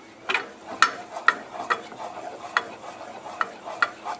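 Wooden spoon stirring thick barbecue sauce in a stainless steel saucepan, knocking and scraping against the pan's sides about twice a second in an uneven rhythm.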